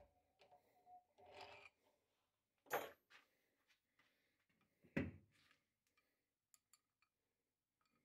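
Faint handling noises of turned wooden knobs on threaded steel rods at a lathe chuck: a short scrape, then two sharp knocks about two seconds apart, and a few light clicks near the end.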